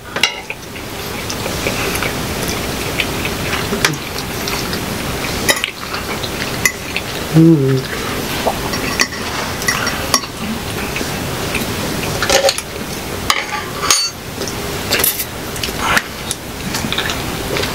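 Close-miked eating: metal forks clinking and scraping on plates as spaghetti is twirled and eaten, in scattered short clicks over a steady hiss, with one hummed "mm" about seven seconds in.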